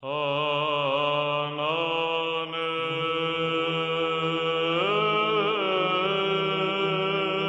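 Opening theme music: long held notes over a steady low drone, moving to new notes about a second and a half in and again near five seconds.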